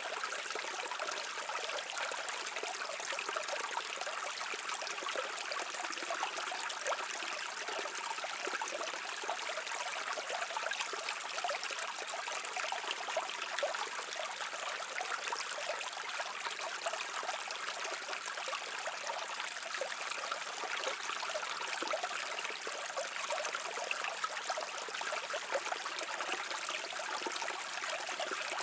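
Shallow stream babbling and trickling over rocks, a steady even rush of water with fine splashing detail.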